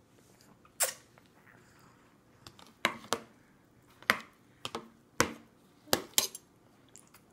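Spoons clinking and scraping against a metal-rimmed feeding bowl, about eight sharp separate clinks at irregular intervals.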